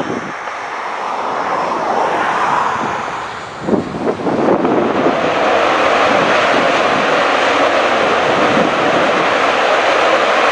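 Panavia Tornado GR4's twin RB199 turbofan engines in afterburner, a loud jet roar that builds over the first few seconds and then holds steady from about four and a half seconds in.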